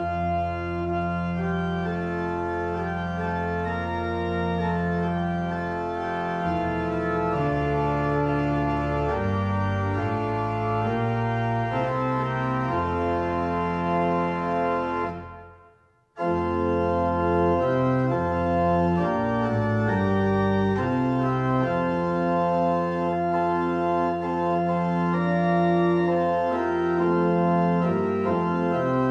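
Organ playing slow, held chords over a deep bass line, the chords changing every second or two. The music fades away about halfway through and starts again abruptly a second later.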